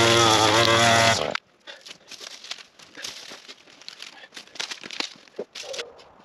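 Chainsaw's two-stroke engine running steadily, then cut off sharply about a second in. After it, irregular crunching and crackling of footsteps in dry leaves and a branch being handled and dragged over the forest floor.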